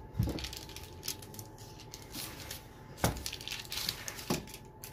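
Small wooden rolling pin rolled over soft shortcrust dough on baking parchment in a metal tray: rustling and scraping, with a few sharp knocks, the loudest about three seconds in.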